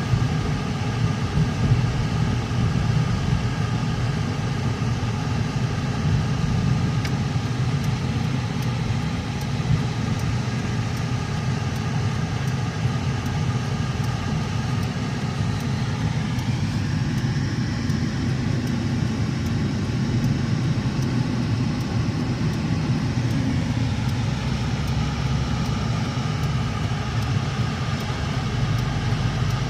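Car interior noise while driving: steady engine and road hum heard from inside the cabin, with the engine pitch rising about sixteen seconds in as the car speeds up.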